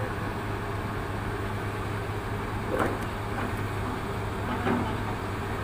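Hydraulic excavator's diesel engine running steadily with a low drone, with a few short, sharp sounds about halfway through.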